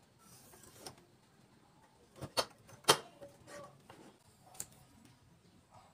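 Several separate sharp clicks and knocks from a guided-rod knife sharpening system being handled, its metal rod, guide and blade clamp knocking together; the loudest comes about three seconds in.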